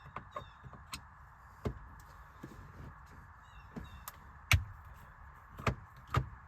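Scattered light clicks and taps of a T25 Torx driver working out the mounting screws inside a steering wheel, with three louder knocks in the last two seconds.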